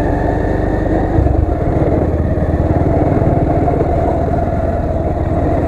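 Motorcycle engine running steadily while the bike rides along at an even speed.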